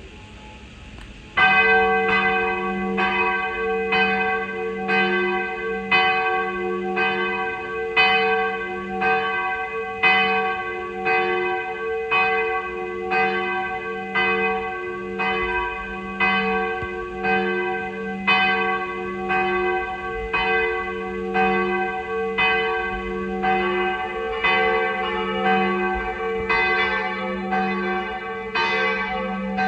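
Church bells start ringing the noon peal suddenly about a second in, several bells of different pitches struck in a steady rhythm with roughly one loud stroke a second and long ringing tails. Near the end more strikes overlap as a second church's bells compete with the first.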